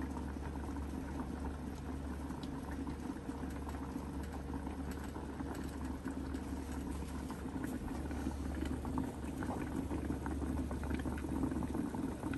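Pork chops simmering in whiskey in a frying pan covered with a glass lid: steady bubbling and sizzling with many small pops, over a low steady hum.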